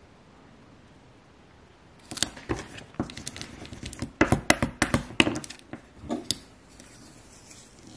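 Vinyl transfer tape on a clear acrylic keychain blank being rubbed down with a felt-edged squeegee and peeled off. It starts about two seconds in as a run of crinkly, scratchy clicks and rustles, loudest near the middle, then dies back to low background.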